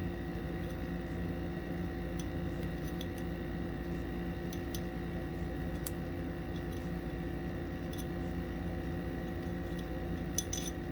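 Steady room hum with a few fixed tones, over which come a handful of faint, sharp metallic clicks and ticks as an Allen key turns a screw out of a pistol slide's front sight.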